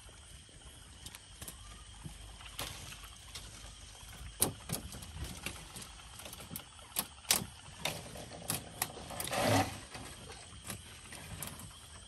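Handling noises of a gill net and fish in a wooden boat: scattered clicks and knocks as the mesh is picked off a fish and the fish are laid on the wet plank floor, with a longer rustling scrape about nine and a half seconds in.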